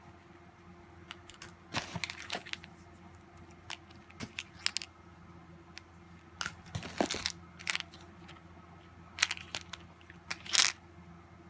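Plastic packaging and packing material crinkling and rustling in short spells, with small clicks, as items are handled in a cardboard shipping box. The loudest rustle comes near the end.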